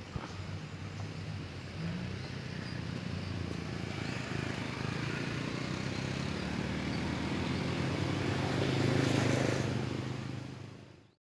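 A motor engine drones steadily, growing louder over several seconds, then fades away near the end.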